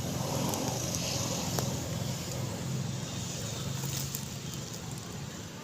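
A steady low engine hum, easing off about four seconds in, with a few faint clicks.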